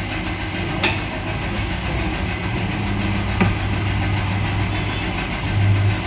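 Steady low hum of a workshop machine's electric motor, with two short sharp metal clicks, about a second in and again about three and a half seconds in.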